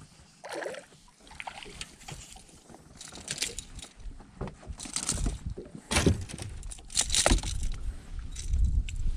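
A small smallmouth bass being swung out of the water into a fishing boat and handled: a string of knocks, rattles and splashes, the loudest strokes about five, six and seven seconds in.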